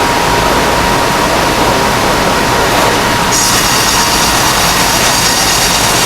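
Double-cut band sawmill running loud and steady, its band blade sawing through a red oak log. About three seconds in, a high, hissing whine joins the cutting noise.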